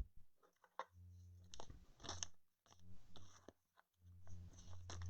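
Faint crinkling and crackling of trading cards and a foil pack wrapper being handled, with a sharp click at the start and a low steady hum in places.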